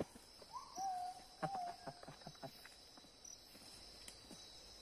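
Footsteps crunching and rustling through leaf litter and undergrowth, with a few twig-like snaps, over a steady high drone of forest insects. About a second in, a clear whistled call sounds: a short rising note, then a longer level one.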